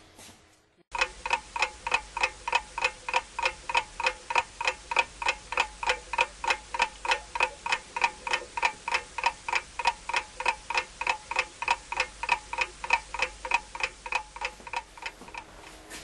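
Clock ticking at a steady rate of about three ticks a second, each tick short, sharp and ringing. It starts about a second in and stops just before the end.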